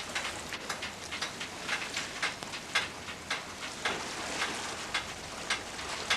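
Dense, irregular patter of many small sharp taps and clicks over a steady hiss.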